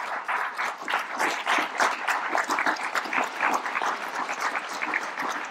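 An audience applauding: many people clapping at once, steadily.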